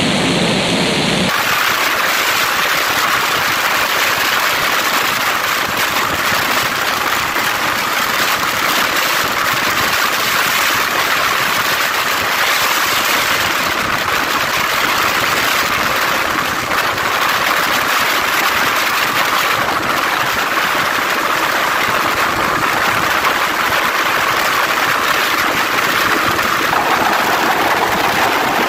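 Heavy, steady wind rush buffeting the microphone of a camera on a sport motorcycle at full speed (about 130–140 km/h), burying the engine. About a second in, the sound changes abruptly to this steady rush.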